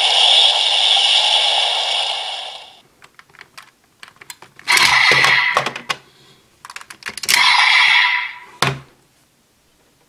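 A DX Desire Driver toy belt's electronic sound playing from its built-in speaker, fading out about three seconds in. Then plastic clicks and two louder scrapes, about a second each, as the Raise Buckles are unclipped and slid out of the belt, ending with a sharp click.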